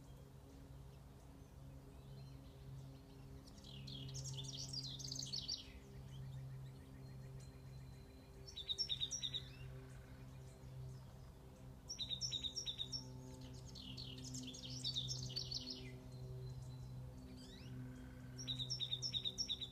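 Songbirds singing, alternating a rambling warbled phrase with a fast run of short repeated notes, five phrases in all, over a steady low hum.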